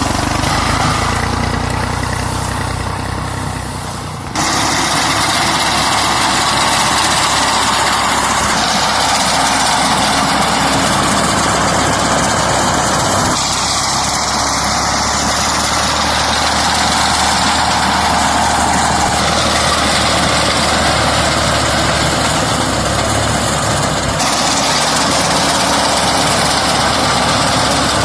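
Tractor-powered wheat harvesting machinery running steadily as a loud, continuous mechanical drone. The sound changes abruptly about four times along the way.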